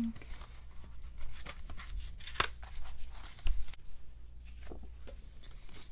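Paper album inserts and packaging rustling and crinkling as they are handled, with scattered small clicks and a sharper tap about two and a half seconds in.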